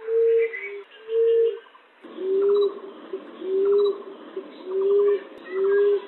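Common emerald dove cooing: six low, soft coos, each about half a second long and a little over a second apart, with faint chirps of other birds behind. About two seconds in the recording changes, and the coos drop slightly in pitch over a louder background hiss.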